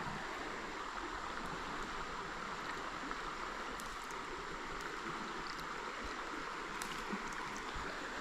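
Creek water running steadily, an even rushing with a few faint ticks over it.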